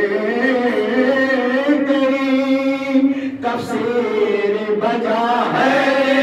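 A small group of men chanting an unaccompanied Urdu Muharram recitation into a microphone. One voice leads and the others join in on long held notes.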